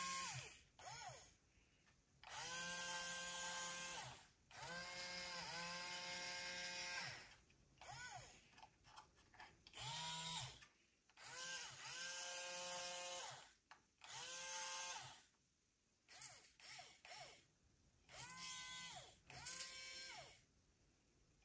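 Small hobby robot arm's electric joint motors whining in about a dozen short bursts as the arm moves and closes its gripper on a cube. Each burst rises in pitch as a joint starts and falls as it stops, with brief pauses between moves.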